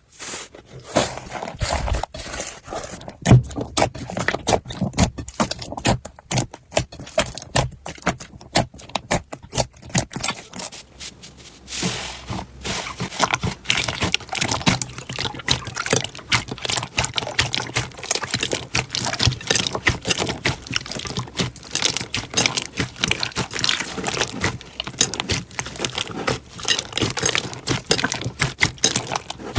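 Slime being handled, giving a dense, irregular run of wet clicks and pops, sparser for the first ten seconds or so and thicker after that.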